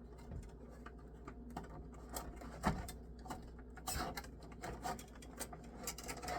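Scattered light clicks and taps of zip ties and cables being handled and fitted, with a denser run of clicks about four seconds in.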